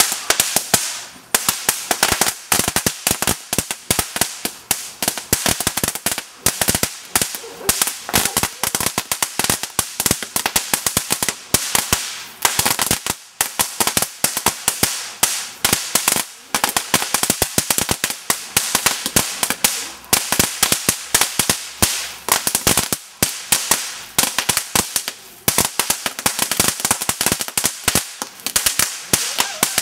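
Magic whip (crackling whip) firework strand burning: a continuous stream of rapid, irregular sharp cracks with only brief lulls.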